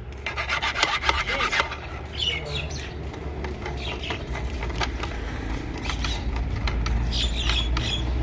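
Steel hand tool scraping and rasping against the steel face of a tractor clutch release bearing in quick, short strokes, with a few brief squeals. The tool is working at the ridge worn into the bearing by the clutch finger bolts. A low rumble builds in the background in the second half.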